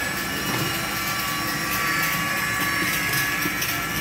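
A machine running steadily, with a thin high whine of several tones over a low rumble.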